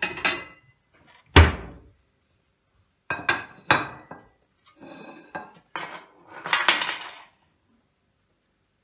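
Dishes clattering and clinking as a plate is taken out and handled, a series of sharp knocks with one heavy thump about a second and a half in and a longer rattle near the end.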